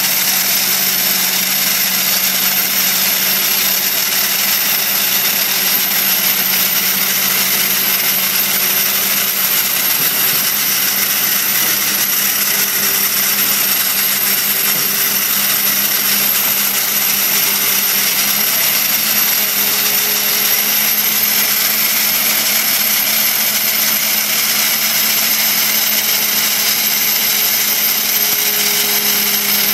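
Dry-ice blasting gun hissing steadily as its jet of compressed air and dry-ice pellets strips synthetic resin paint off wood, with a steady low hum underneath.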